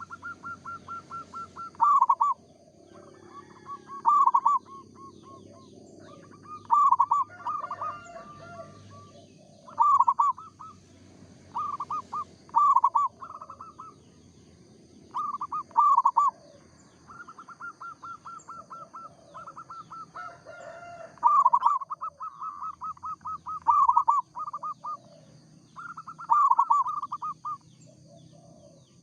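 Zebra doves (perkutut) cooing: short phrases of quick pulsed notes come every second or two, with longer strings of evenly spaced notes just after the start and again about two-thirds of the way through. A faint steady high whine runs underneath, and other birds call faintly now and then.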